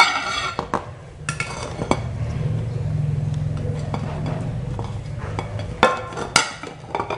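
A white plate and an aluminium tube cake pan clink and scrape against each other as the plate is laid over the pan and the pan is turned upside down to release the baked cake, with two sharp knocks about six seconds in. A steady low hum runs underneath through the middle.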